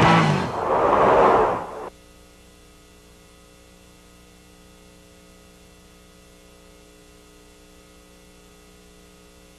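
A loud passage of programme sound cuts off abruptly about two seconds in. A steady electrical mains hum with several fixed tones is left.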